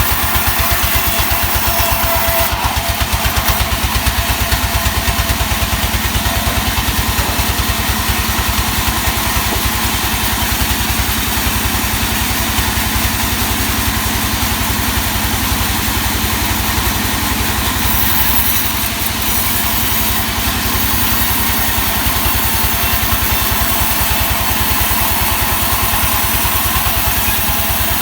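A sawmill's engine running steadily with a fast, even chugging pulse.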